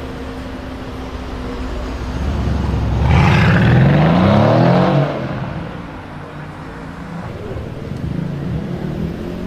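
Mercedes-AMG car accelerating hard: the engine grows louder, then rises in pitch for about two seconds at its loudest. About halfway through it drops off sharply to a lower rumble.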